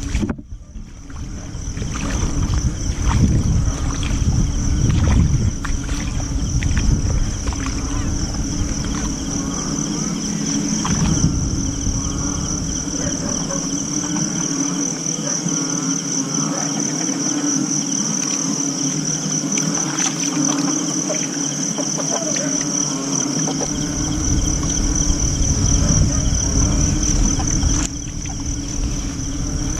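Night chorus of frogs and insects in a flooded field: a steady high-pitched drone with repeated frog calls. Under it, low rumbling from wind and movement in the shallow water.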